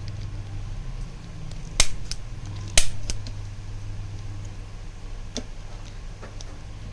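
Manual spring-loaded chiropractic adjusting gun firing twice, about a second apart: two sharp snaps, each followed by a fainter click, over a steady low hum.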